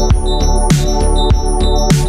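Music with a steady beat: a sharp drum hit about every second and a quarter over sustained pitched notes.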